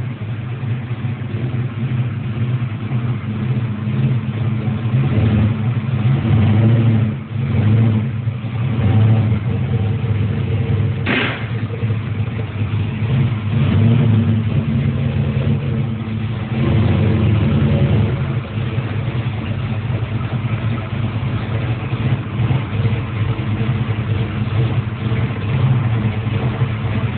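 Restored Chevrolet Bel Air's engine running at low speed under light throttle as the car is driven up onto lift ramps, swelling with several throttle blips; the engine sounds mean. A short sharp sound cuts through about eleven seconds in.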